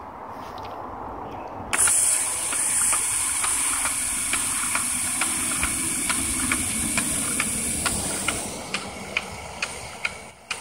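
Water rushing into a garden drip-irrigation line with a loud hiss that starts suddenly about two seconds in as the hose timer's valve opens, pushing air out of the lines. Under it a MixRite 1% water-powered fertilizer injector ticks steadily, about two to three times a second. The hiss eases off about eight seconds in while the ticking goes on.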